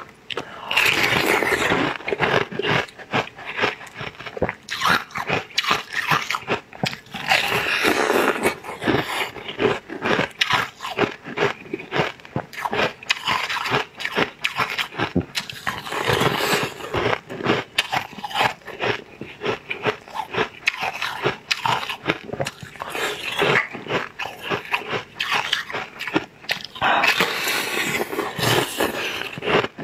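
Close-miked eating sounds: biting into and chewing a pink dragon-fruit jelly cake, a dense, irregular run of clicks and wet mouth noises.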